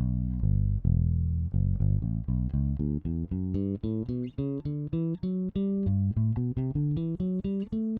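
Alien Audio Constellation four-string electric bass played clean, straight into the interface with no processing, both pickups on, EQ flat and the tone control at halfway. A plucked bass line of a few held notes at first, then quicker notes, several a second, near the end.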